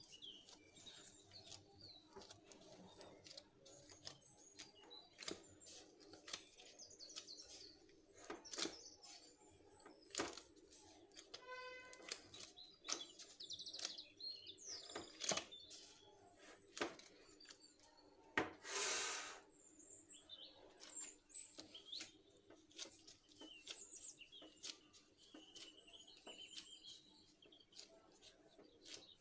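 Faint birds chirping in the background, with soft taps and rubbing from gloved hands working bread dough in a glass bowl and on a floured counter. About two-thirds of the way through there is one louder burst of noise lasting about a second.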